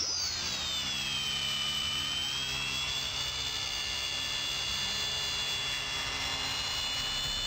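Walkera Master CP micro RC helicopter in flight: the high-pitched whine of its electric motor and rotors, shifting in pitch for about the first second, then holding steady.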